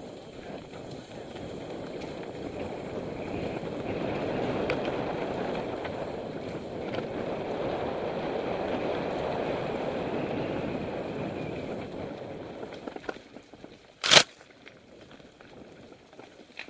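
A mountain bike rides fast on dirt singletrack, with a steady rush of wind and tyre noise. The rush fades as the bike slows about twelve seconds in, then a single sharp knock comes a couple of seconds later, with a few small clicks and rattles after it.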